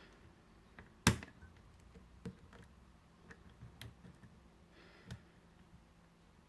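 Lock pick and tension wrench working the pins of a Squire SAL/40 padlock, giving scattered small metallic clicks, with one sharp, much louder click about a second in.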